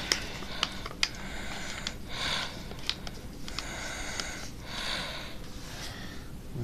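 A sheet of paper being folded and creased by hand: short spells of rustling and crinkling, with a few sharp clicks.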